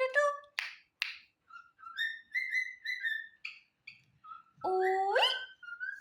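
Pet cockatiel whistling and chirping: a string of short whistled notes, then a louder rising whistle about five seconds in. Two short hissy bursts come in the first second.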